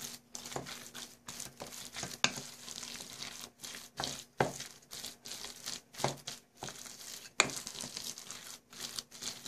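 Wooden spoon stirring and mashing thick potato salad in a stainless steel bowl: wet squishing and scraping, with a few sharper knocks of the spoon against the bowl at irregular moments.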